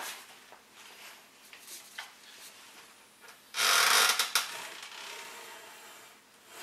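Weider home gym working under load during a chest-fly rep: the cables and pulleys running with soft rubbing and small clicks, and one loud rasping burst about three and a half seconds in that lasts under a second.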